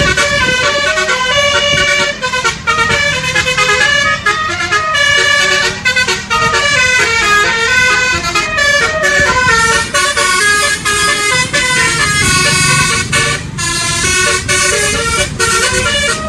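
Basuri telolet horn, a set of electrically switched air-horn trumpets, playing a fast tune. It steps from note to note several times a second without a break.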